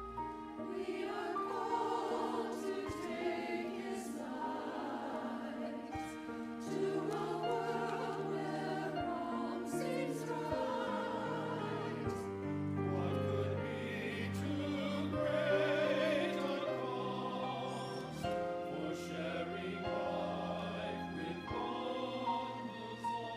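Church choir singing with instrumental accompaniment, sustained low notes held underneath the voices.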